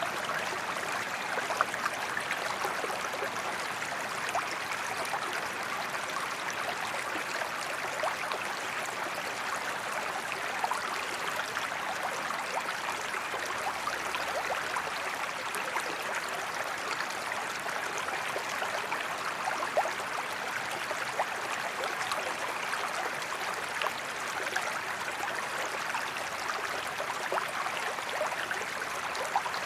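Forest creek flowing steadily, a continuous babble of water with small splashes and trickles scattered through it.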